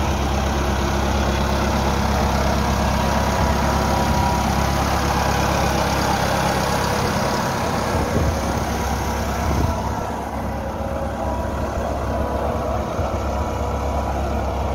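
Massey Ferguson 375 tractor's Perkins diesel engine running steadily while pulling a tilling implement through a flooded rice paddy.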